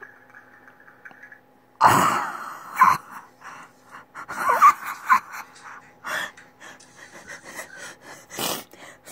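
Audio of kids' funny video clips playing through laptop speakers: a sudden loud clatter about two seconds in, then a string of short gasps and cries.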